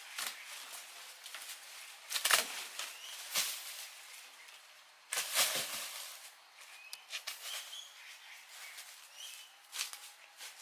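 Small birds chirping in short repeated tweets, with a few loud, sharp, noisy bursts, the strongest about two seconds in and just after five seconds in.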